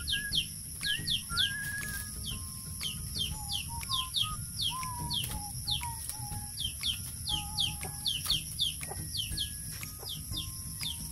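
Birds chirping: quick, high, downward-sweeping chirps, two or three a second, with short lower whistled notes between them and a steady high drone behind.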